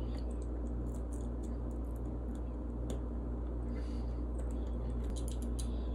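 Faint ticks and light scraping of a small Allen key turning a screw into a plastic filament-detector housing, over a steady low hum.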